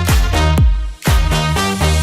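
Background dance music with a steady four-on-the-floor kick beat, briefly dropping out about a second in.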